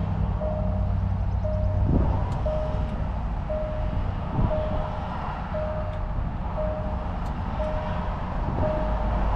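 Land Rover engine idling with a steady low hum, while a warning chime beeps about once a second. Two brief thumps come in the first half.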